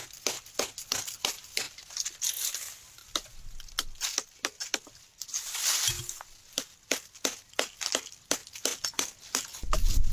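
Dry leaves and twigs crackling and crunching in quick, irregular sharp clicks, several a second, with a couple of brief rustles.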